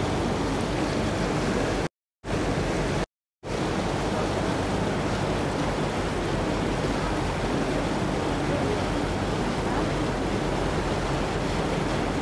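Steady rushing noise of a river boat under way, water and air sweeping past the open deck. The sound cuts out completely twice, briefly, about two and three seconds in.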